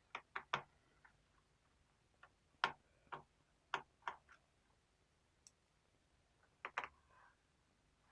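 Faint, sharp clicks of a small screwdriver undoing the screws of a laptop's plastic bottom cover, in scattered groups of two or three.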